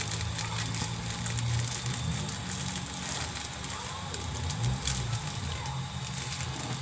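Coconut milk and brown sugar heating in a nonstick wok on the stove: a steady hiss with faint scattered crackles over a low hum, the mixture coming up towards a simmer.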